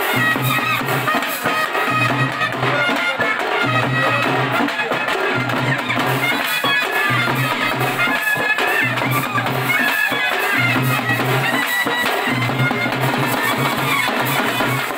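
Traditional procession band music: large double-headed drums beaten with sticks in a repeating beat, under a wind instrument playing a melody.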